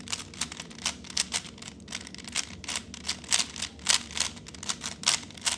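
Plastic 3x3 Rubik's-type speedcube being turned face by face while it is scrambled, a quick irregular run of light clicks, about four or five a second.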